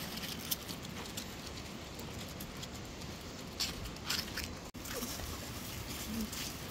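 Dry fallen leaves crunching and rustling underfoot, with a few crackly bursts near the middle, over a steady outdoor background noise.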